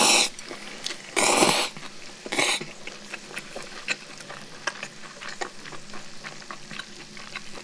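Cold noodles being slurped loudly from a bowl, three times in the first three seconds. Under the slurps and on through the rest, pork belly sizzles and spits fat in a frying pan, with constant small crackles.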